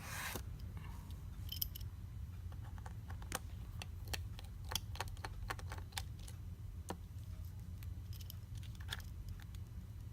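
Scattered small clicks and taps of tools and parts being handled during iPad screen removal, irregular and a few a second at most, over a steady low hum.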